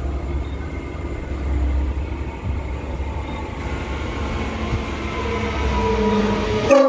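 Queensland Rail three-car electric train pulling in alongside a station platform: a steady low rumble of wheels and motors, with a whine that grows louder over the last two seconds. The sound cuts off suddenly at the very end.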